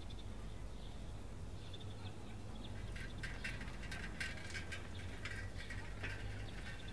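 Small birds chirping, faint at first, then a busy run of quick, sharp chirps from about halfway in, over a steady low hum.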